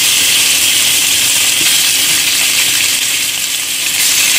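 Marinated chicken pieces sizzling in hot oil in a non-stick pan as more pieces are laid in by hand: a steady, loud frying hiss.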